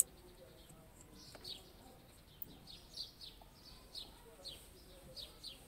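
Small birds chirping, short high falling chirps repeating about twice a second, with a sharp click at the very start.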